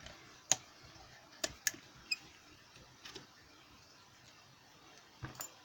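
Scattered light metallic clicks and taps, one with a brief high ring about two seconds in, from lock-picking tools and tension wrenches being handled against a padlock.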